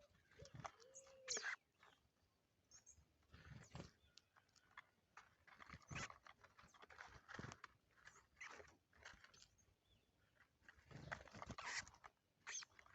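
Quiet bird-feeding spot: a low hooting coo, held about half a second, about a second in, then scattered soft taps and rustles.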